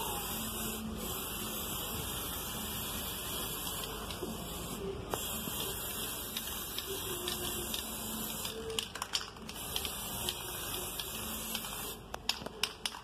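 Aerosol spray paint can hissing as paint is sprayed, in long bursts with brief breaks, stopping near the end among a few light clicks.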